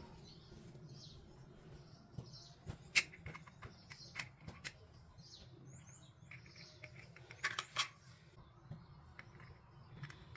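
Plastic toy kitchen pieces handled, clicking and tapping together in a few sharp clicks, about three seconds in, again around four to five seconds, and a pair near eight seconds. Faint short high chirps sound in the background.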